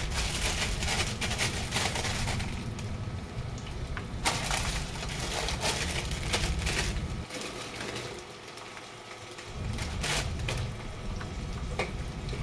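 Fresh green beans snapped apart by hand, a run of crisp cracks and crunches, the pieces going into a frying pan of hot oil and garlic.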